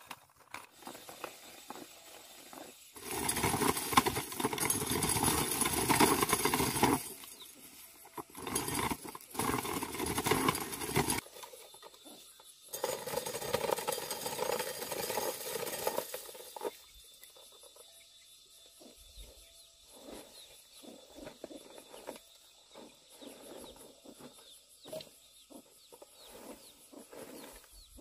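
Dried ears of corn being shelled by hand on a small wooden sheller: three long stretches of dense scraping and rattling as the kernels are stripped off and fall onto the pile, then only scattered light clicks.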